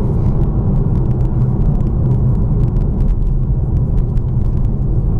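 BMW M2 Competition's twin-turbo straight-six engine running at a steady load while driving, mixed with tyre and road noise, with faint scattered ticks over it.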